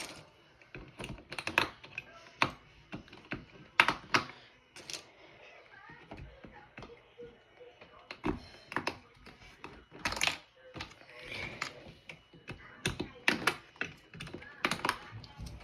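Plastic keycaps clicking and knocking against the keyboard as they are pried off and picked out one by one: a string of irregular sharp clicks, the loudest about 4 and 10 seconds in.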